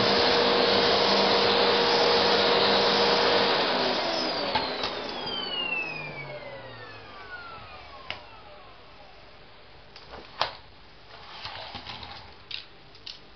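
Vacuum cleaner running loud, then switched off about three and a half seconds in, its motor winding down with a falling whine over the next few seconds. A few short knocks follow in the quiet.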